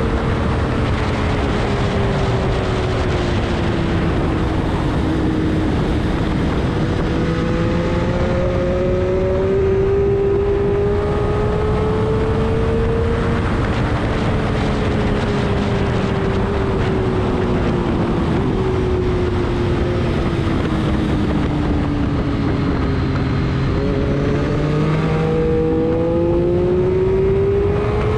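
Race vehicle engine running hard on a track. Its pitch rises and falls in long, smooth sweeps as it speeds up and slows, over a steady rush of noise.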